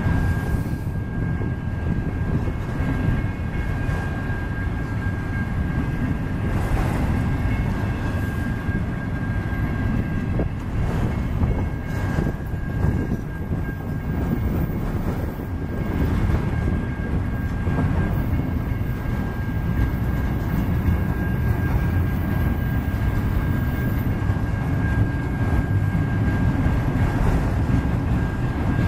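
Autorack freight cars rolling slowly past: a steady low rumble of steel wheels on rail, with scattered knocks from the wheels and couplers and a faint steady high-pitched tone throughout.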